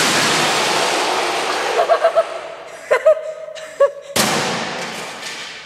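Flat-screen TV smashing on a concrete floor after a long drop: a crash of breaking glass and plastic that dies away slowly in a large hall, with a second crash about four seconds in.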